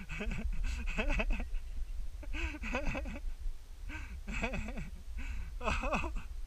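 A man laughing breathlessly in short bursts of three or four syllables, over a steady low rumble of wind on the microphone.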